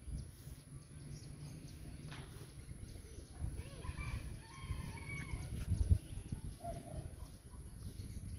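A rooster crowing faintly in the distance, one drawn-out crow a few seconds in, over a low steady rumble.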